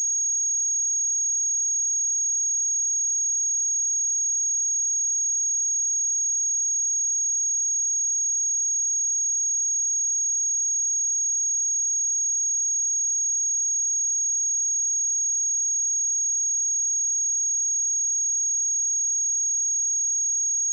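A pure 6588 Hz sine-wave test tone: one steady, high-pitched whistle held at constant pitch and level, with nothing else sounding.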